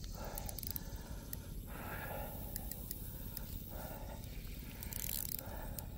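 Fishing reel working while a catfish is played: several short stretches of hissing drag or reeling, about a second apart, over a steady low wind rumble on the microphone.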